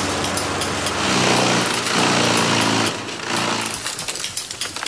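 Engine of tree-care power equipment running under throttle, its note shifting in pitch; it gets louder about a second in and drops back near three seconds.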